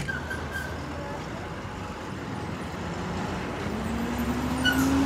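Truck engine pulling away and accelerating over steady road noise. Its pitch rises slowly and the sound grows louder over the last second or so.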